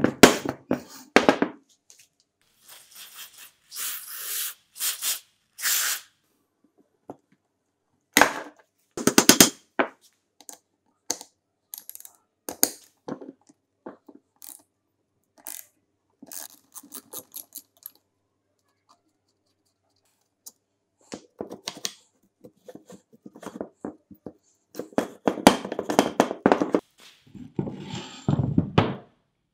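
Hand work on the metal parts of a vintage ice shaver: irregular clicks, knocks and short scraping or brushing strokes with silent gaps between them, and a busier run of handling near the end.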